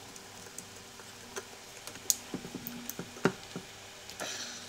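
Scattered light clicks and taps of a screwdriver and small metal parts on the bandsaw's switch housing as the ground wire is screwed down under the factory screw, the sharpest two about two and three seconds in.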